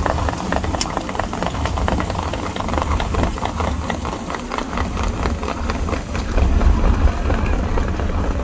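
Starter car's engine and road rumble heard from inside the cab, with the quick patter of standardbred horses' hooves on the dirt track alongside, thinning out as the field pulls away.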